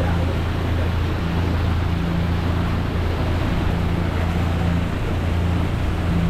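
Small passenger ferry's engine running with a steady low drone, heard aboard with water and wind noise.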